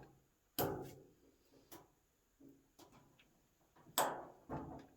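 A metal tool prying at a stuck plastic dryer door switch in its housing: sharp clicks and knocks at about half a second, near two seconds and near four seconds, with small ticks between.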